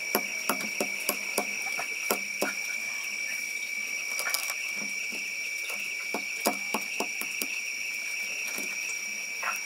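A steady high insect chorus, with irregular light knocks and clicks over it, about two or three a second.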